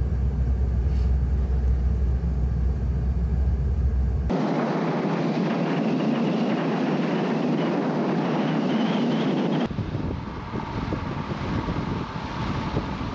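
Steady rumble of a moving vehicle, cut off abruptly about four seconds in. The rest is two edited stretches of steady rushing noise without the deep rumble, changing again about nine and a half seconds in.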